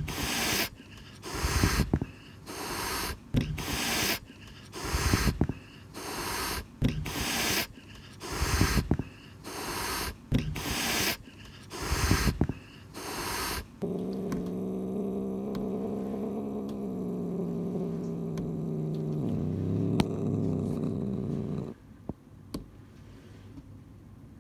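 Domestic cat hissing over and over, about a dozen sharp hisses a little over one a second. It then switches to a steady low growl that drops lower near the end before it stops: an angry, defensive cat.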